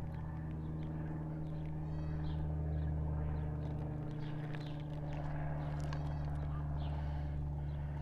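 Propane burner under a stock pot running with a steady low hum. A couple of short, faint animal calls come through, about two and six seconds in.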